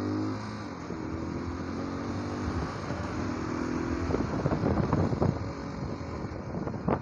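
Motorcycle engine running while riding in traffic, passing close beside a bus. From about four seconds in, irregular buffeting noise comes in over the engine.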